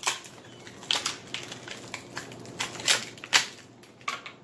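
Clear plastic wrapping crinkling and crackling in irregular sharp bursts as it is pulled off a small plastic toy pony figure.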